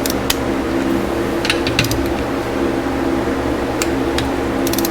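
Steady hum of a room air conditioner, with a few short sharp clicks from hand tools as an engine bolt is torqued down.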